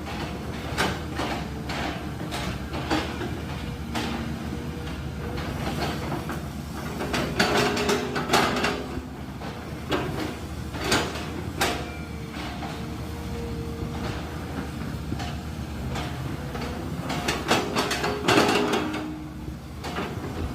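Sany SY215C excavator's diesel engine running steadily, with repeated clanks and knocks and a few short squealing tones as the machine works.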